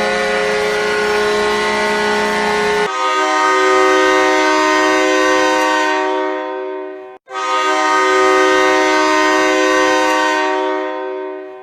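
Hockey arena goal horns. One horn ends abruptly about three seconds in and a different multi-note horn takes over, sounding two long blasts of about four seconds each with a short break between them.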